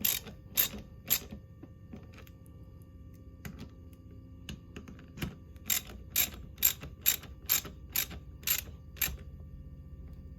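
Ratchet wrench with a 13 mm socket clicking as nuts are tightened on LiFePO4 battery cell terminals. A few clicks at the start, scattered ones in the middle, then a steady run of about two clicks a second from about six to nine seconds in.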